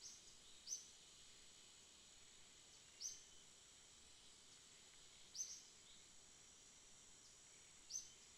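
Faint rainforest night ambience: a steady, high-pitched insect drone, with a short high chirp from a small animal about every two and a half seconds, five in all.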